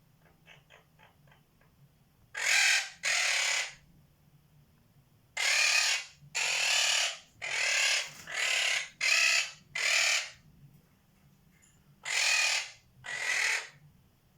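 Quaker parrot (monk parakeet) giving harsh, raspy squawks: ten of them in three bouts of two, six and two, each about half a second long. They are preceded by a few faint quick clicks.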